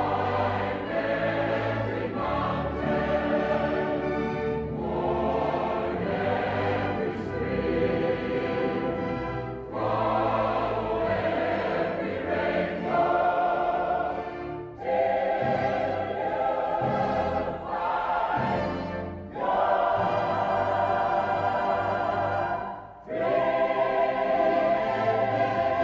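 Background music: a choir singing over orchestral accompaniment, in phrases of a few seconds with short breaks between them.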